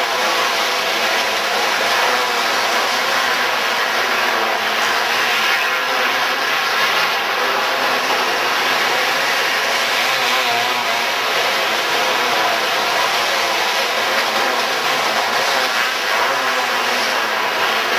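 Outlaw dirt kart engines racing on an indoor dirt track, several at once, a steady loud din with no let-up.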